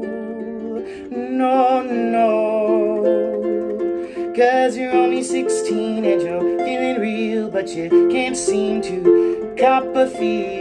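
Small lever harp plucked in a flowing accompaniment while a man sings over it with vibrato, a few notes struck with sharper accents.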